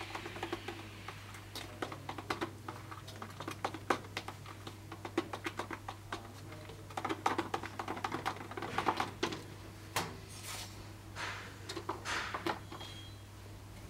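A stick stirring and scraping in a small plastic tub, making quick, irregular clicks and taps. A steady low hum runs underneath.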